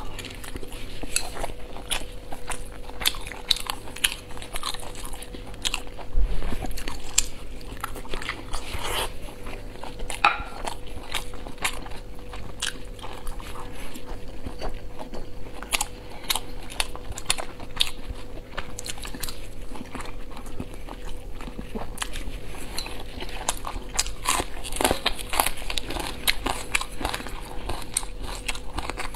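Chewing and biting boiled dumplings filled with pickled cabbage, with many small mouth clicks and smacks throughout. A faint steady hum sits underneath.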